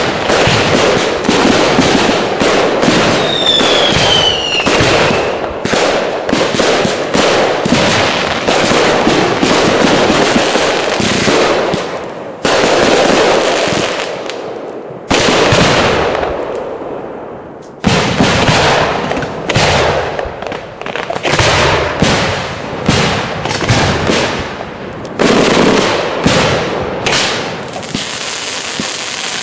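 A fireworks display firing volley after volley of bursts and bangs in quick succession. A falling whistle rings out a few seconds in, and there are short lulls about halfway through.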